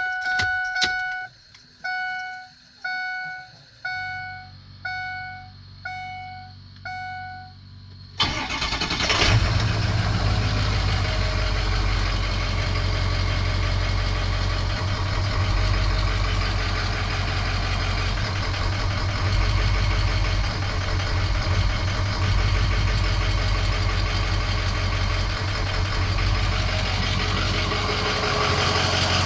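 A dashboard warning chime sounds about eight times while the ignition is on, then about eight seconds in the 6.0 Powerstroke V8 turbodiesel cranks, starts and settles into a steady idle. The idle is the rough idle that sets no trouble codes.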